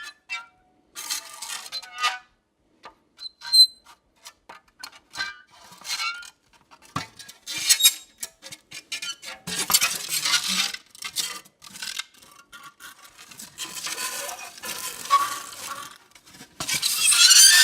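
Dry ice vibrating against a metal cookie sheet, making irregular crackles and clicks mixed with short high-pitched tones. It swells into denser, louder bursts now and then, loudest near the end.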